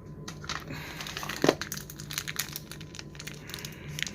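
Plastic packaging crinkling as it is handled, a dense run of irregular crackles with one sharper click about a second and a half in.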